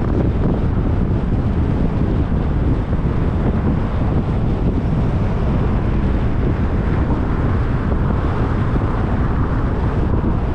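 Steady road and wind rumble from a car driving along city streets, recorded on a GoPro.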